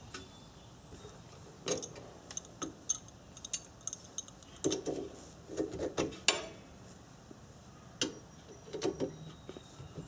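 Combination wrench and adjustable wrench clicking and clinking on the bolts of a rear brake caliper as they are tightened: scattered light metal clicks, some in quick runs.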